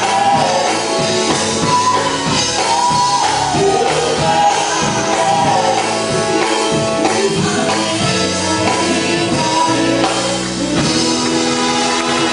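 A gospel vocal group singing live into microphones, backed by a band with a drum kit.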